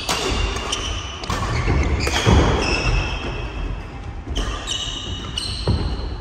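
Badminton doubles rally on a wooden indoor court: players' shoes squeak repeatedly on the floor, with sharp racket strikes on the shuttlecock and thudding footsteps.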